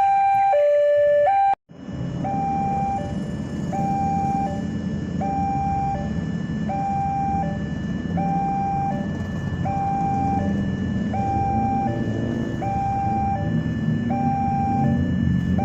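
Two-tone hi-lo siren, broken off by a sudden cut about a second and a half in. Then a single-pitch siren tone sounds about once every second and a half over a low engine rumble.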